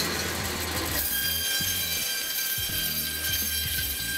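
Butcher's band saw running as it splits a loin of pork: a rough cutting noise for about the first second, then a steady high whine over a low motor hum.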